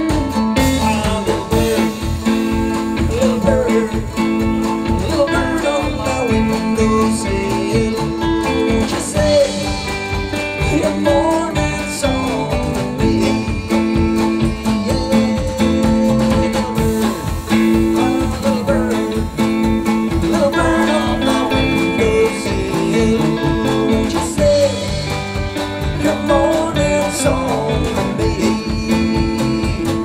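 Live acoustic band playing country-style music: guitars picked and strummed under a wavering melody line, with no sung words.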